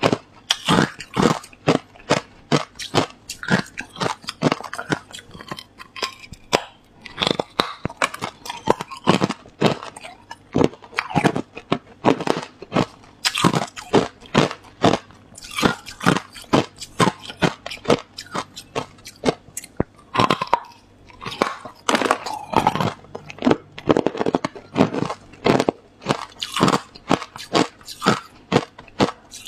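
Hard clear ice being bitten and chewed: a fast, uneven run of sharp crunches, several a second, with no break.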